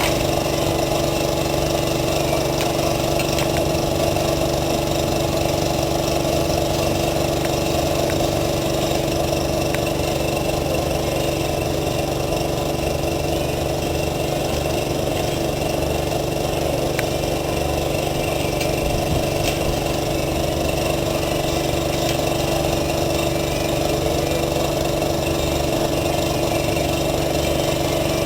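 Steady, unchanging motor hum like a small engine running, with a few faint clicks over it.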